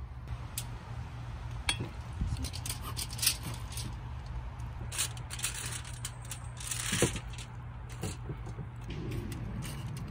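Scattered metal clicks and light rattling from a rotisserie spit and its fork prongs being handled as raw chickens are slid onto it, with a couple of short, louder rustles.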